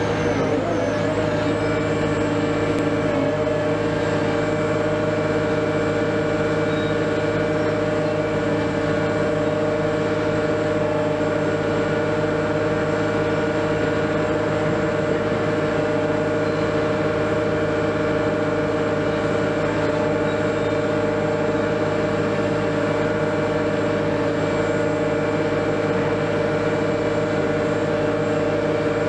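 Liebherr LTM 1750-9.1 mobile crane's diesel running at a steady speed: an even drone with several steady whining tones over it, unchanging throughout.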